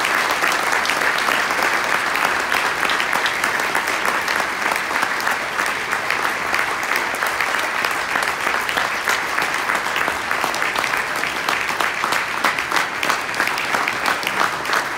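Audience applauding: a roomful of people clapping steadily, with single claps standing out more clearly in the second half.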